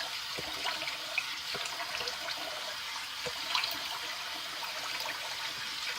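Water running steadily from a tap into a sink, with small splashes scattered through it as water is splashed onto the face for a cold rinse.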